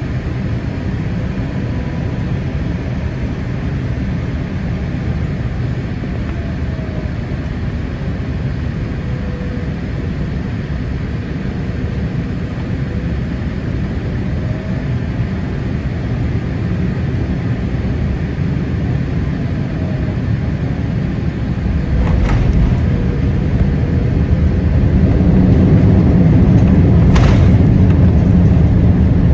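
Cabin noise of a Boeing 787-8 airliner on short final: a steady rush of airflow and engine noise with a faint wavering tone. About two-thirds through, a thud marks the main wheels touching down. The low rumble of the rollout then grows louder, with a sharp knock near the end.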